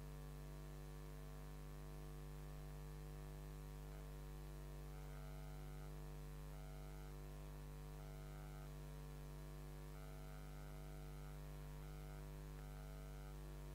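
Steady electrical mains hum with a stack of its overtones.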